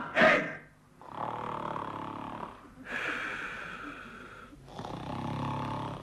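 A man snoring, three long snores of about a second and a half each, the middle one higher in pitch, grinding away like a cement mixer. The last hits of a drum kit end it just as it begins.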